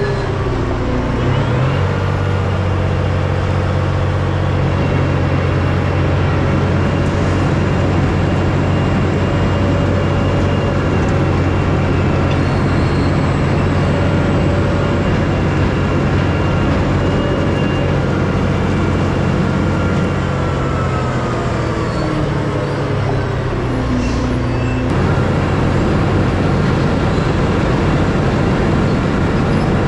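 Heavy diesel dump truck engine running steadily under way, its note shifting about a second in and again near 25 s.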